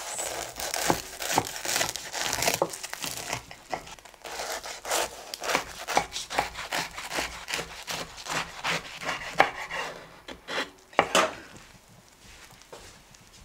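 Kitchen knife sawing through a toasted sandwich on a wooden cutting board: rapid crunching strokes through the toasted bread crust, with a louder stroke near the end as the blade goes through.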